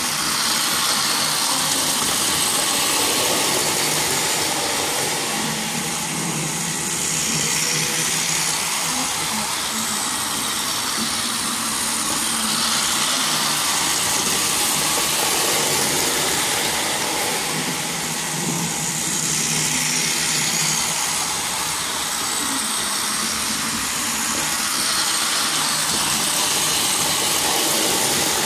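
Battery-powered toy train running on plastic track: a small electric motor whirring and wheels running along the rails in a steady hiss that swells and fades about every six seconds.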